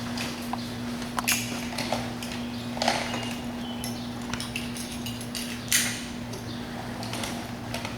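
Irregular clinks, knocks and rustles of firefighters' SCBA air-pack gear being handled and put on, over a steady low hum.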